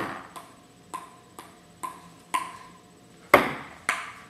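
A table tennis ball being hit and bouncing: about eight sharp clicks at uneven gaps of roughly half a second, some with a short ring. The loudest knock comes about three-quarters of the way through.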